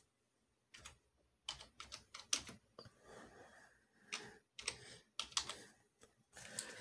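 Typing on a computer keyboard: a faint, irregular run of keystrokes in short clusters with brief pauses between them.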